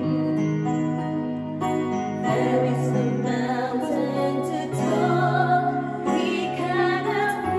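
Two women singing a slow song together over an electronic keyboard accompaniment, with long held notes and a steady bass line.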